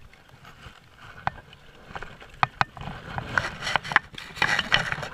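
A hooked trout being landed at the creek bank: irregular knocks and splashing, getting busier about three and a half seconds in as the fish thrashes into the landing net.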